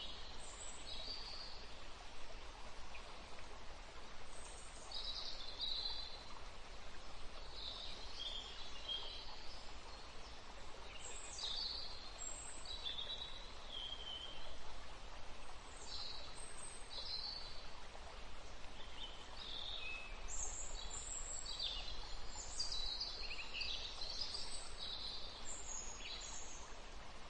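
Small birds chirping in short, scattered calls over a steady hiss.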